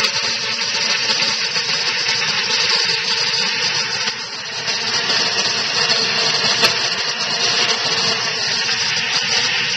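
Magic Bullet blender running steadily at full speed, its motor whirring as it blends a thick milk shake with frozen banana and peanut butter.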